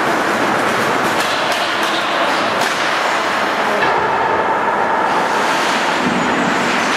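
Ice hockey game sounds in an arena: a steady wash of skates scraping the ice and rink noise, with a few sharp clacks of sticks and puck in the first few seconds.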